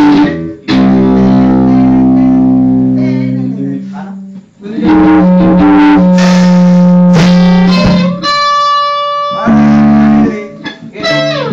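Electric guitars playing loud chords, each struck and left to ring for several seconds, with a high single note held for about a second before the last chord.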